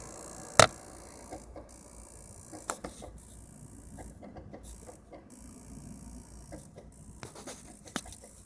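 PlayStation 3 console making an irregular rattling buzz with scattered clicks, the sharpest about half a second in, over a steady faint hum; a weird buzzing noise of unknown cause.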